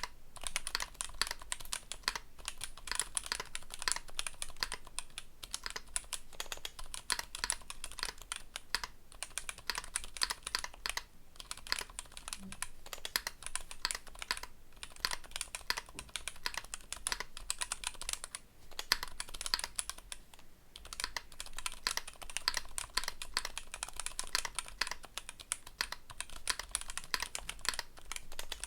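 Fast, continuous typing on a KBDfans D60 WKL custom mechanical keyboard: gasket-mounted FR4 plate, TTC Bluish White switches and EPBT 9009 keycaps. A steady stream of quick, bright key clicks, broken by a few short pauses.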